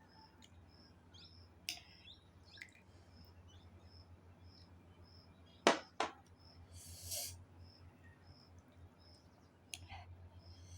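Mealtime eating sounds: a few sharp clicks of dishes or cutlery, the loudest pair about six seconds in, and a brief rustle. A high chirp repeats evenly about twice a second behind them, over a low steady hum.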